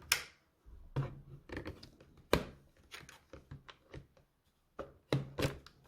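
Hard plastic parts of a Samsung Jet 70 cordless stick vacuum being handled and clicked together: a string of sharp, irregular clicks and knocks, the loudest about two and a half seconds in.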